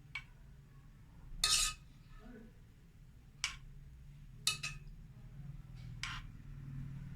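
A spoon knocking and scraping against a dish in about six short clinks, the longest about a second and a half in, as sauce is spooned in between the stuffed potato balls. A low steady hum runs underneath.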